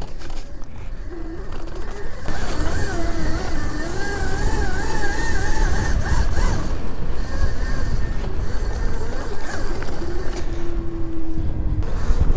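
Riding noise from a Razor electric dirt bike on a trail: heavy wind rumble on the microphone, with a whine that wavers in pitch from about two seconds in and a steadier tone near the end.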